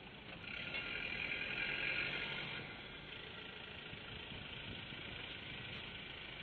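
Engine of an off-road vehicle running at low speed, louder for about two seconds near the start, then settling to a steady run.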